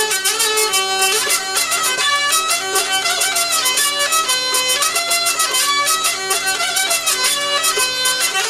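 Fast, lively violin music with a quick steady beat and a held low note underneath.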